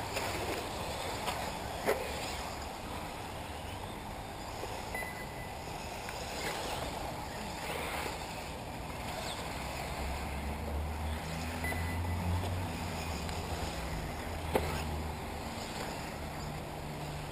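1/8-scale electric RC off-road buggies racing, with faint rising and falling motor whines over a steady noisy background. There are sharp knocks about two seconds in and about three-quarters of the way through, a few short high beeps, and a low wind rumble on the microphone in the middle.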